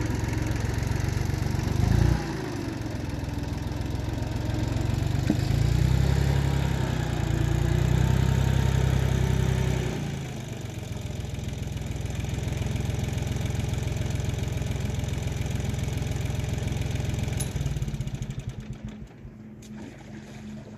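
Iseki TL2500 tractor's diesel engine working under load, its revs rising and falling in loud surges for the first ten seconds, then running steadier and quieter and fading near the end as the tractor moves off.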